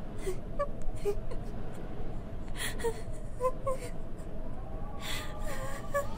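A girl's crying voice: short whimpers and sobbing gasps, with breathy sobs about two and a half seconds in and again near the end.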